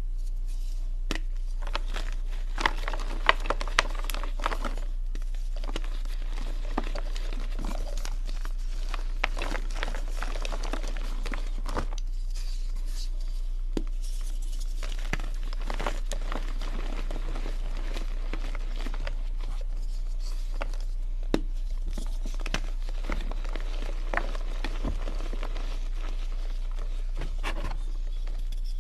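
Blocks of dyed gym chalk crushed and crumbled by hand in a plastic bucket: dry crunching and crackling with sharp snaps, loudest a few seconds in, as the blocks break down to powder. A steady low hum runs underneath.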